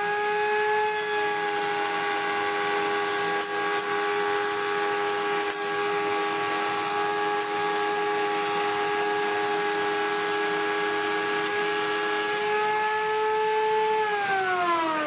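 Router motor running at full speed in a benchtop router table, a steady high whine, while a board edge is fed past the straight bit in a jointing pass. Near the end its pitch starts to fall as the motor winds down.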